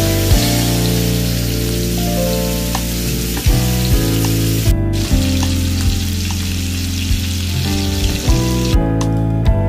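Parboiled cauliflower florets and potato chunks sizzling in hot oil in a frying pan, a dense steady hiss. The sizzle breaks off for a moment about five seconds in and stops near the end, with background music underneath throughout.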